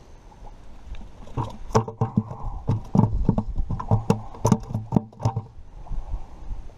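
A quick, irregular run of about a dozen sharp knocks and slaps over roughly four seconds, as a bluegill with a deep-swallowed hook is handled and worked off the hook.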